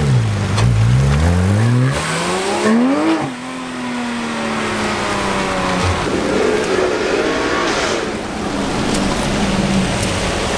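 Porsche 911 engine revving as it pulls away, its pitch dipping and climbing, then rising to a peak and dropping sharply at a gear change about three seconds in, then holding a steady, slowly falling note. After that, more general car engine and traffic noise, with a fainter engine note rising and falling.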